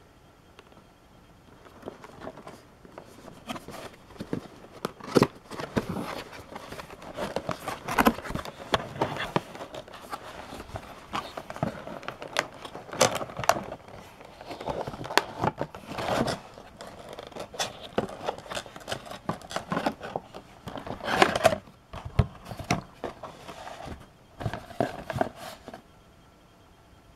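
Cardboard box and plastic packaging being handled and opened: irregular rustling, crinkling and sharp clicks and knocks, starting about two seconds in and stopping shortly before the end.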